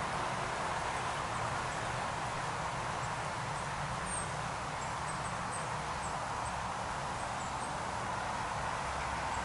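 Steady rushing of a small stream's flowing water, with a few faint high chirps now and then.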